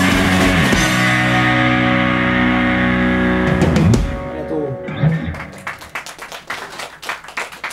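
A rock band of electric guitar, bass guitar and drums holds a final ringing chord, closing with a few drum hits, and stops suddenly about four seconds in. Scattered hand claps follow and fade.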